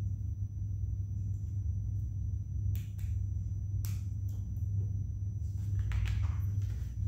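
Lego Technic pieces clicking and rattling as they are handled and fitted together: a few sharp separate clicks and a short rustle near the end, over a steady low hum.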